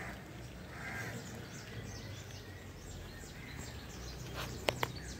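Faint outdoor ambience: small birds chirping repeatedly in short, falling high notes over a steady low hum, with two sharp clicks near the end.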